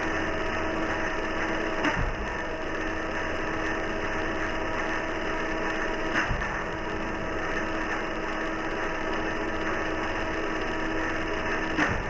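Circular saw blade spinning steadily with a motor whine. Three times, near the start, in the middle and near the end, a banana hits the spinning blade with a sudden smack.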